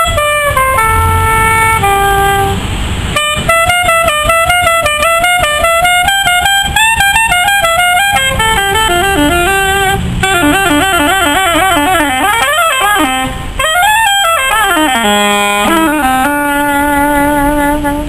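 Soprano saxophone played solo: a jazzy melody of quick runs, a fast wavering passage about halfway through, a swoop up and back down, then a long held low note near the end.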